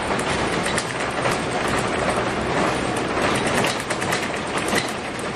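Scania K280UB city bus in motion, heard from inside the cabin: steady road and running noise with frequent clicks and rattles from the body.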